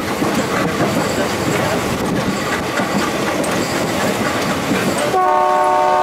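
Passenger train running, wheels clattering over the rail joints, heard from aboard a train hauled by an ALCO WDM-3A diesel locomotive. About five seconds in, the locomotive's horn starts a loud, steady blast that is still sounding at the end.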